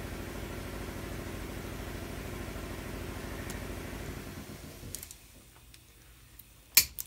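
A motor-driven machine hums steadily at an even pitch, then winds down and stops about four to five seconds in. Near the end, diagonal cutters clamp onto the end of a steel brake line with a sharp metallic snap, followed by a smaller click.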